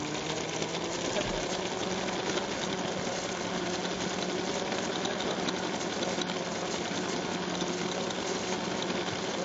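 Small electric motor and plastic gearing of a motorised Lego car running at a steady pitch, a constant hum with a gritty gear rattle, its pitch settling just after it has spun up.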